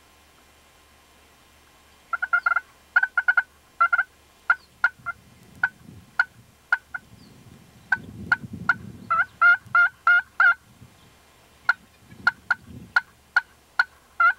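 Turkey yelps and clucks: sharp, high calls in quick runs of yelps about two and three seconds in and again around nine seconds, with single clucks about half a second apart in between. A faint low rustle comes in about eight seconds in.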